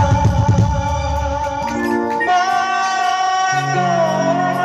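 Live Baul song amplified through a PA system: fast drumming stops about two seconds in, then the singer holds a long note that bends slightly downward, over sustained instrumental accompaniment.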